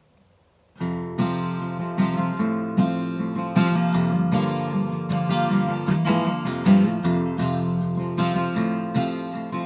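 Acoustic guitar strummed in a steady rhythm, starting about a second in: the instrumental intro of a country song.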